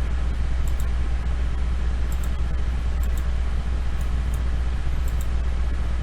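Steady low hum and hiss of background noise, with faint, sharp clicks in pairs about once a second: a computer mouse being clicked.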